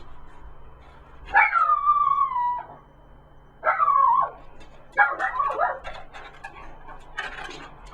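A dog whining in three drawn-out calls, the first two falling in pitch and the third more broken, followed by faint clicks near the end.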